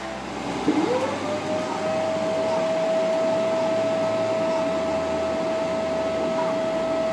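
An airliner's jet engines heard from inside the cabin, spooling up: a whine rises quickly in pitch about a second in, then holds as a steady tone over a growing rush of engine noise as the plane moves along the taxiway.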